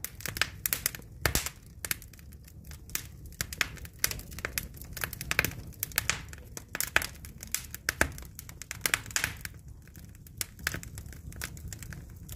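Logs burning in a wood fireplace, crackling and popping in quick, irregular snaps over a low steady rumble.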